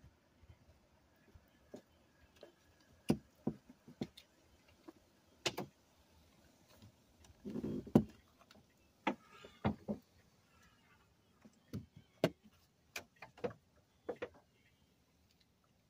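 Irregular clicks and knocks of a handheld phone being handled and turned around, with a louder rustle and a sharp bump about eight seconds in.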